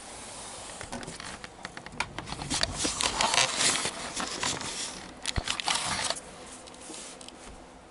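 Fabric curtains rustling and scraping close to the microphone as they are pushed aside, with a run of quick clicks. The sound is loudest in the middle and dies down over the last couple of seconds.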